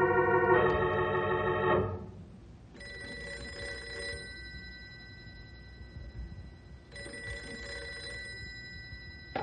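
A short organ music bridge ends about two seconds in. A telephone bell then rings twice, each ring lasting about a second and a half, with a pause of a few seconds between them.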